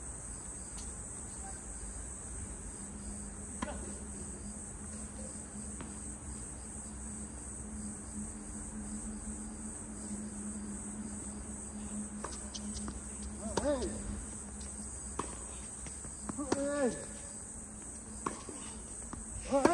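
Steady high-pitched insect chorus, like crickets chirring. Short voiced shouts break in about two-thirds of the way through, again a few seconds later and at the very end, with a couple of sharp knocks between.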